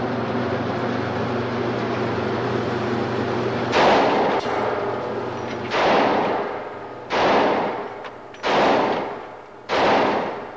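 Five shots from a large semi-automatic pistol, fired one at a time a second or two apart on a covered shooting range. Each shot is followed by a long echoing decay. A steady hum fills the first few seconds before the first shot.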